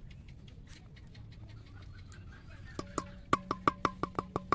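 Low outdoor background noise with a few faint clicks. About three seconds in, background music starts with a quick, evenly clicking wood-block-style percussion beat, about five strikes a second.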